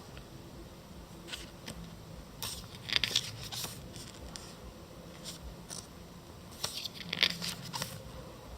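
Paper rustling and crinkling in short scattered strokes, as the pages and packaging of a magazine photobook are handled, with a few louder strokes about three seconds in and again near seven seconds.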